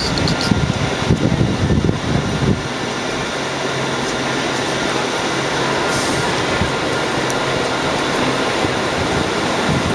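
Steady, loud drone of a subway rail car's running equipment, a mix of humming and fan-like rushing, heard close beside the car. There are uneven low rumbling bumps in the first couple of seconds.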